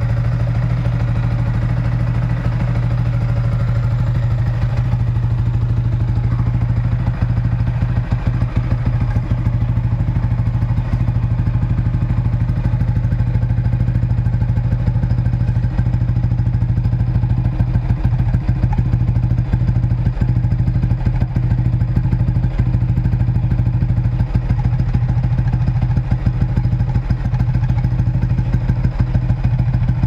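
Yamaha Sniper 155R's single-cylinder engine idling steadily through a plug-and-play UMA Racing aftermarket exhaust.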